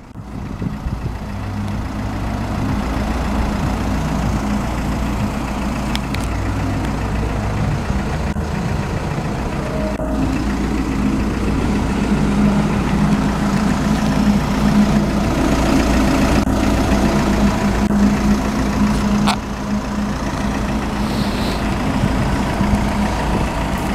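Volkswagen Transporter van's diesel engine idling steadily.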